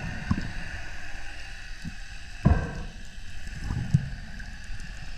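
Muffled underwater noise heard through a camera housing, with a steady hiss and a faint constant tone, broken by a few dull knocks, the clearest about two and a half and four seconds in, as the diver handles the speared fish on its line.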